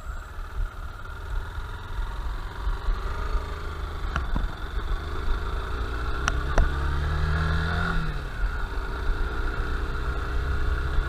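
Honda Bros 160's single-cylinder motorcycle engine running at low speed, its pitch rising and falling once about two-thirds of the way through. A few sharp clicks are heard over it.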